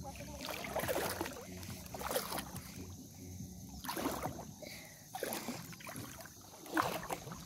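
Wading through shallow seawater among seagrass at low tide, the water sloshing and swishing with each step about once a second.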